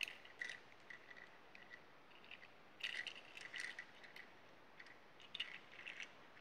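Faint clicks and light rattling of hard plastic toy parts as a Transformers Rodimus Prime action figure is handled and its pieces are moved into position. The clicks come in short clusters about half a second, three seconds and five seconds in.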